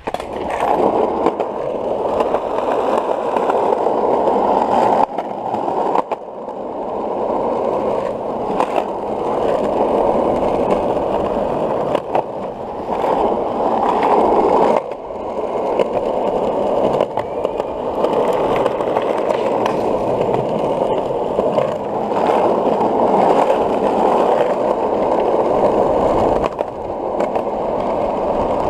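Skateboard wheels rolling over smooth concrete: a steady rolling rumble that swells and eases with speed, broken by occasional sharp clicks.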